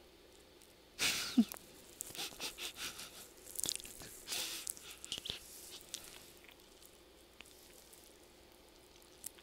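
A man laughing quietly and breathily: a sharp burst of breath about a second in, then a run of short huffs for several seconds that die away.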